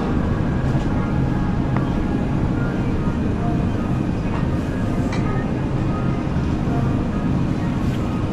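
Supermarket ambience: a steady low rumble with faint background music.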